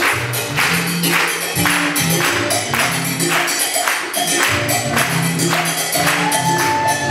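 Salsa dance music playing, with a steady percussion beat of about two strokes a second over a bass line.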